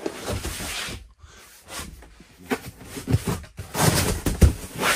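Upholstered seat cushions being shifted and dropped onto pulled-out wooden bed slats, making up a double bed. Rustling and scuffing with scattered knocks and thumps, the loudest near the end.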